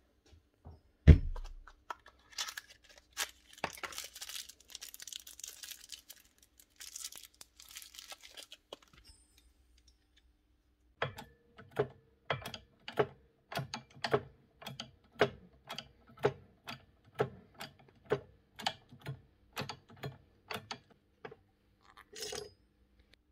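Rustling and a few light clicks as small ball bearings are handled. After a short pause comes an even run of sharp metallic clicks, about one and a half a second, each with a short ring, as a new bearing is pressed onto a planer armature's shaft in a shop press.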